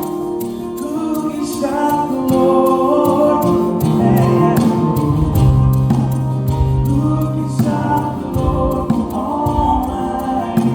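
Worship song with singing over instruments and a steady beat.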